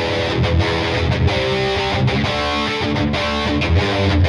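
Ibanez RG350DXZ electric guitar played through a distorted tone, riffing on chords with brief stops between them.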